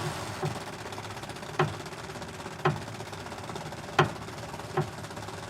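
Chevrolet Aveo steering rack's inner tie-rod ball joints knocking sharply about five times, roughly a second apart, as the steering is worked. The joints are dry for lack of grease: it sounds like a knock but is really the dry joint grinding and snapping over.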